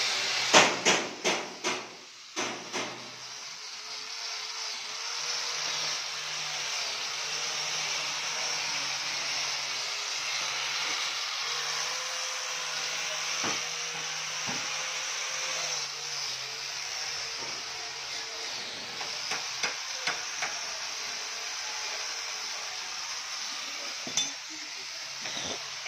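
A run of sharp metal knocks, then an electric angle grinder with a wire cup brush running steadily against a steel chassis frame, scouring the welds. A few light clicks come near the end.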